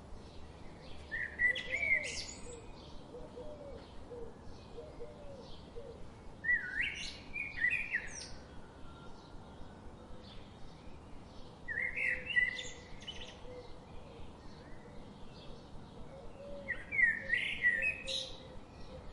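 Birds singing and chirping: one loud song phrase, about a second long, comes back roughly every five seconds, four times in all, over a steady background of fainter chirps from other birds.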